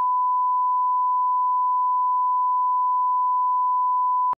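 Steady 1 kHz line-up test tone played with broadcast colour bars, the reference tone for setting audio level; it cuts off abruptly near the end.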